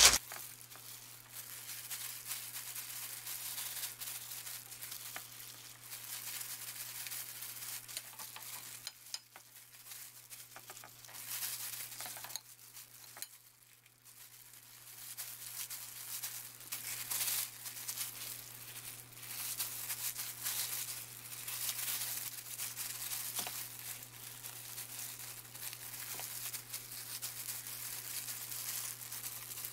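Disposable plastic gloves crinkling and rustling as hands squeeze and roll cooked rice into small balls, with a few seconds' lull midway. A steady low hum runs underneath.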